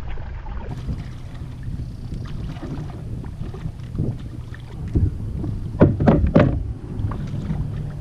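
Steady wind noise on the microphone, with a quick run of three or four splashes about six seconds in, as a hooked largemouth bass thrashes at the surface beside the kayak.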